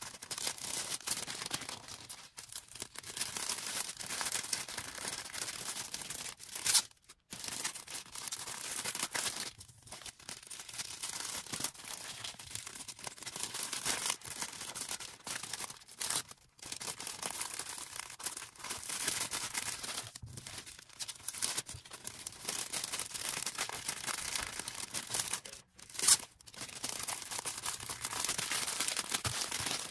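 Packing materials being handled: continuous crinkling and rustling of plastic and paper wrapping, with tearing sounds. Two brief louder sounds stand out, one about seven seconds in and one about twenty-six seconds in.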